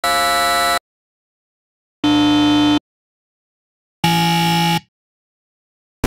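Three different electronic game-show wrong-answer buzzers, one every two seconds. Each is a steady, many-toned buzz lasting just under a second, with silence in between.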